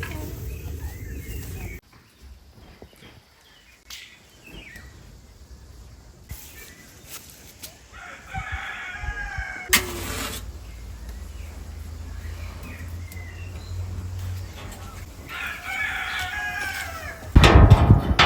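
Rooster crowing twice, each crow about two seconds long, with chickens clucking faintly between the crows. A louder sound begins just before the end.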